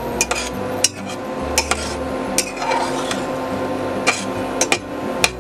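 Metal spatula stirring thick dal in an aluminium pressure cooker pot, scraping and knocking against the pot's sides and bottom in irregular strokes, over a steady hum.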